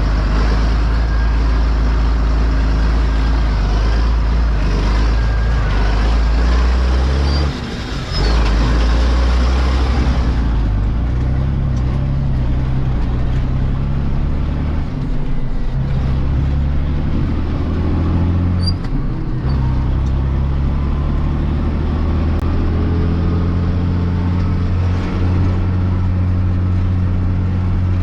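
Heavy diesel farm machinery engines running steadily under load. The sound breaks briefly about eight seconds in and changes character about ten seconds in.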